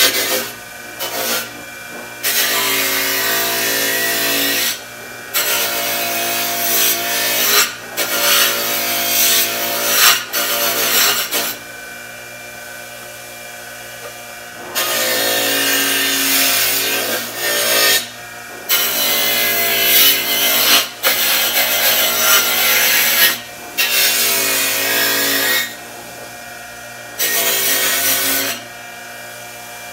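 Bench grinder running with a steady motor hum, while metal pieces are pressed against the spinning wheel in about eleven passes of one to three seconds each, each pass much louder and noisier, falling back to the bare motor hum between them. The metal parts are being cleaned up on the wheel.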